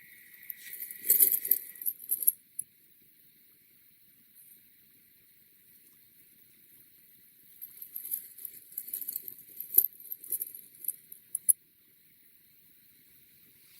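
Kinetic sand crunching and crackling as it is cut and pressed, in two spells: one about a second in and a longer one from about seven and a half to eleven and a half seconds in, with near quiet between.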